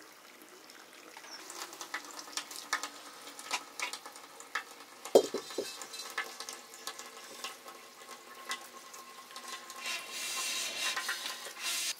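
Food sizzling in a hot pan while it is stirred, a utensil clicking and scraping against the pan, with one loud knock about five seconds in. The sizzle grows stronger near the end.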